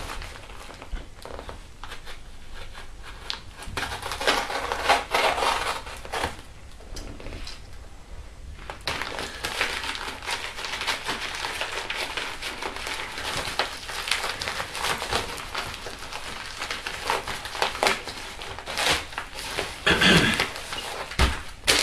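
Packaging crinkling and rustling by hand as a parcel is unpacked, in irregular stretches with small crackles and handling knocks.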